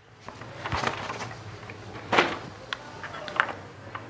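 Handling noise: soft rustles and scattered light clicks as papers and a handheld calculator are picked up and its keys pressed, over a low steady hum.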